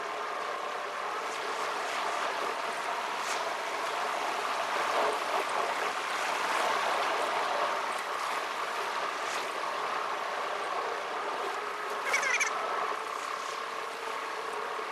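Steady car-interior road and engine noise, sped up fourfold, with a brief louder sound about twelve seconds in.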